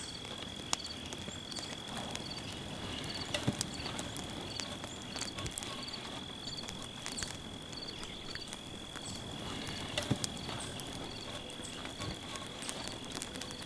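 Insects keep up a steady high-pitched drone, with a short chirp repeating about twice a second. A few sharp clinks, like a spoon against a steel bowl, come now and then.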